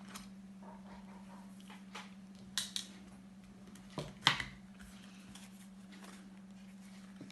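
A steady low hum under quiet room tone, with a few short clicks and rustles about two and a half seconds and four seconds in.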